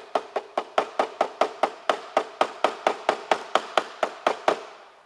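A hammer tapping quickly and steadily, about four to five blows a second, pounding a retaining pin into the tiller trigger clamp of a Luggie mobility scooter. The blows stop about half a second before the end.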